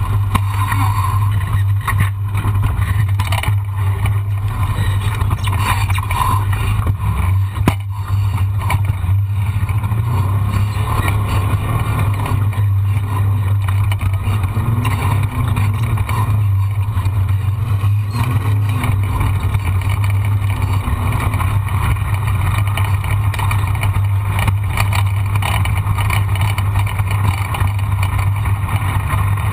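A vehicle engine running at steady speed, a constant low drone that holds one pitch, with a wash of noise over it.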